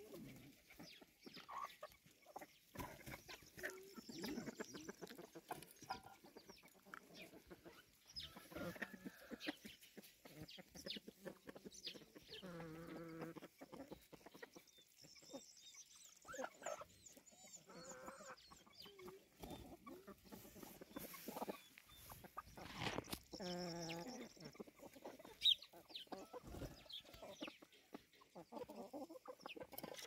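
A flock of chickens clucking as they forage, with many short scattered calls. Twice, near the middle and about three quarters through, a longer drawn-out pitched call stands out. A brief sharp click follows shortly after the second.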